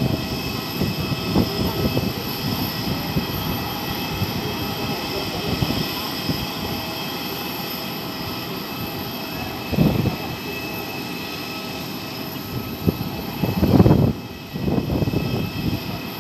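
Airliner engines running steadily with a high whine made of several held tones, under a broad rush of noise. There are brief louder low surges about ten and fourteen seconds in.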